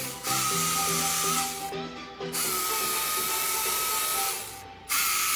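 Hydraulic chainsaw running and cutting wood, a steady high whine with hiss that stops briefly twice.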